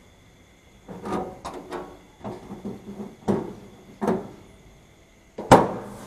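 Metal cover panel of an air conditioner's outdoor unit being fitted back on: a series of irregular knocks and clatters, the loudest near the end.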